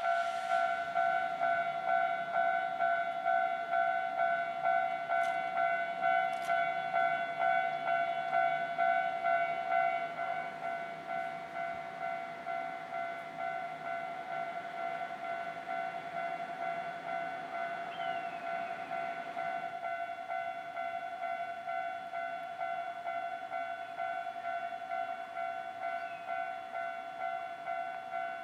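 Japanese railway level crossing's electronic warning bell ringing with an even, repeating ding. It drops a little in level about ten seconds in.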